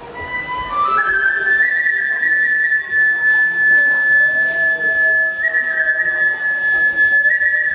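Japanese transverse bamboo kagura flute playing high, stepping up into one long held note that shifts by small steps, as kagura accompaniment.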